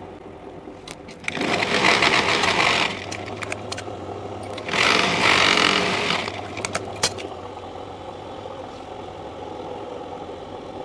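Sewing machine stitching a seam in two short runs of about a second and a half each, the second about three seconds after the first, with a few sharp clicks between and after.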